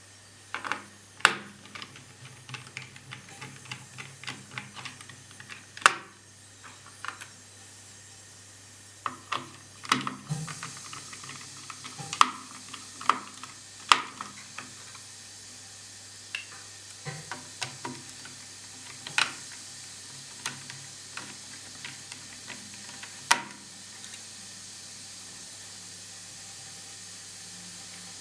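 Irregular sharp clicks and taps of a small screwdriver and screws on a laptop's cooling-fan and heatsink assembly as it is being unscrewed, stopping a few seconds before the end. A faint steady hiss lies under them.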